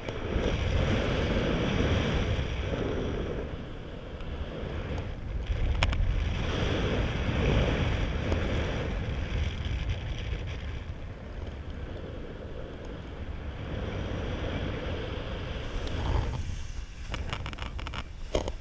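Airflow buffeting the microphone of a paraglider pilot's camera in flight, surging and easing every few seconds as the glider banks through a manoeuvre. A few sharp rustling knocks come near the end.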